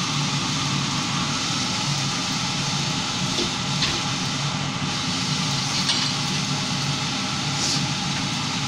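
An egg frying in oil in a nonstick pan gives a steady sizzle, over a steady low hum from the induction hob.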